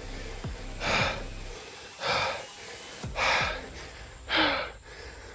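A hiker's heavy, gasping breaths, about one a second, four in all, from the exhaustion of climbing through dense jungle.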